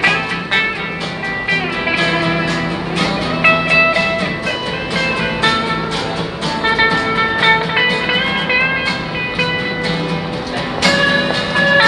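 An electric guitar played through a small amplifier and a strummed acoustic guitar, playing a tune together live, with notes changing continuously over steady strumming.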